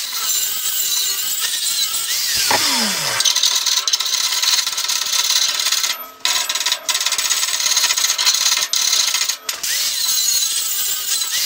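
Angle grinder working over a fresh weld on steel square tubing, a steady high grinding noise. About two and a half seconds in the pitch drops briefly, and the noise cuts out for moments near the middle and toward the end as the grinder comes off the metal.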